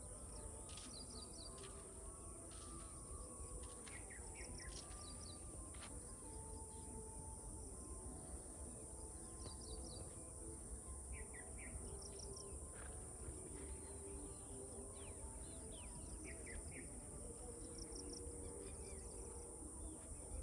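Birds giving short chirps and quick trills, scattered every second or two, over a continuous high-pitched insect drone.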